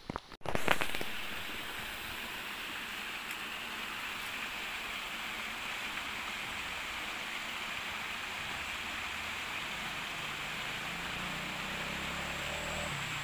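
Steady rushing of creek water, an even hiss, after a brief knock in the first second. A faint low hum comes in near the end.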